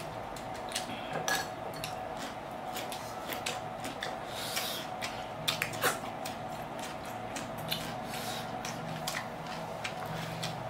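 Close-up eating sounds: two people chewing and biting fried chicken and raw cucumber, with wet mouth noises and many small sharp clicks, over a steady background hum.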